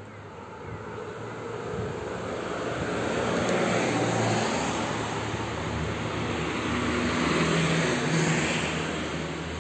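Motor vehicles passing on the street alongside: engine and tyre noise that swells and fades twice, loudest about four seconds in and again near the end.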